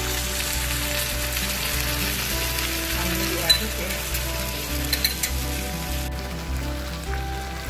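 Beef and bell peppers sizzling in a frying pan while a utensil stirs them, with a few sharp clinks of the utensil against the pan about three and a half and five seconds in. The sizzle drops away abruptly about six seconds in.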